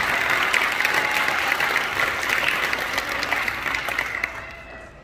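Audience applauding, the clapping fading away about four seconds in.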